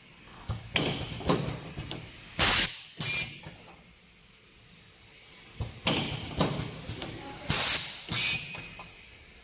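Automatic micro connector soldering machine working through its cycle: a run of mechanical clicks and clacks, then short, loud hisses of compressed air from its pneumatic valves. The pattern comes twice, about five seconds apart.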